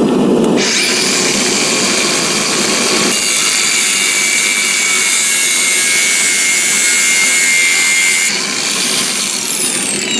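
Angle grinder with a cut-off wheel spinning up with a rising whine, cutting through 8 mm steel round bar with a steady high-pitched hiss, then switched off near the end and winding down with a falling whine.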